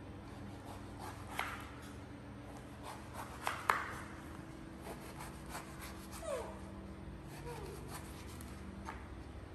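Kitchen knife clicking and tapping on a wooden cutting board as a pomelo is cut, a few sharp knocks with the loudest pair about three and a half seconds in. Past the middle a young macaque gives two short squeaks falling in pitch, over a faint steady hum.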